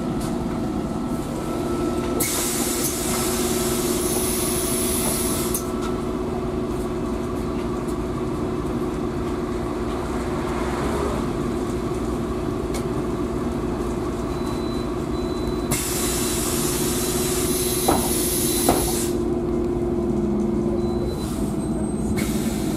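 Cabin noise of a MAN Lion's City 12C city bus on the move: a steady engine and drivetrain hum with road noise. Two stretches of hiss come and go, and two short knocks sound near the end.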